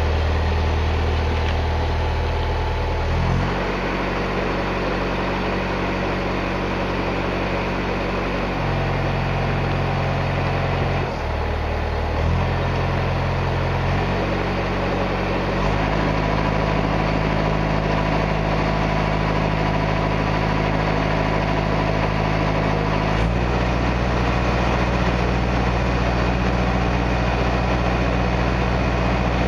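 Narrowboat's inboard diesel engine running under way. Its note steps to a new speed several times as the throttle is changed, then holds steady for the last few seconds.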